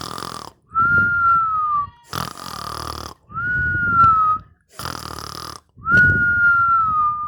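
Snoring sound effect: a rasping snore on the in-breath, then a high whistle over a low rumble on the out-breath, dipping slightly at its end. The cycle repeats evenly three times, about every two and a half seconds.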